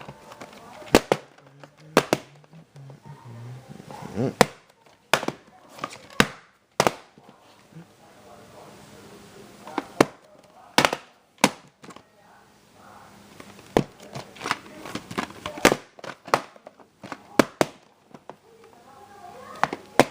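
Irregular sharp clicks and knocks from a VHS tape and its case being handled, about one every second.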